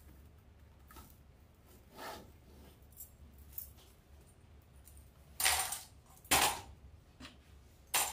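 A handful of short rustling scrapes from poly burlap deco mesh being handled and worked into a wreath board, the two loudest about a second apart past the middle and a sharp one at the end.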